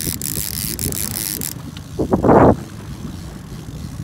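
Line-counter trolling reel being cranked as a fish is brought to the net, its mechanism clicking over wind and choppy water. A short, loud rush of noise comes a little over two seconds in.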